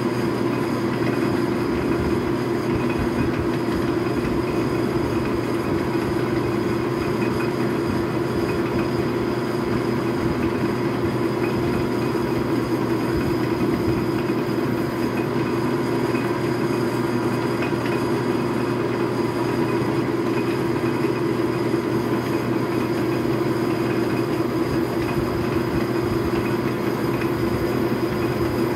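Logan metal lathe running under power, its motor, belts and gears making a steady drone with a fast, even clatter, while a drill is fed from the tailstock into the spinning workpiece.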